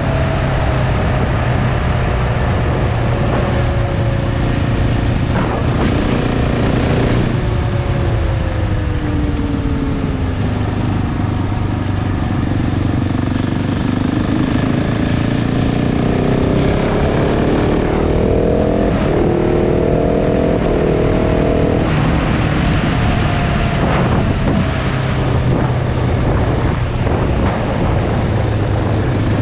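KTM 690 Enduro R's single-cylinder engine running under way, with wind rush over it. The revs fall away for the first several seconds, climb again past halfway, then drop off again near the end.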